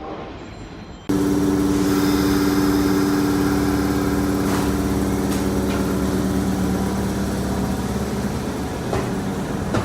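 Steady mechanical hum of a Kintetsu electric train's equipment, with several held tones. It starts abruptly about a second in and eases slightly near the end.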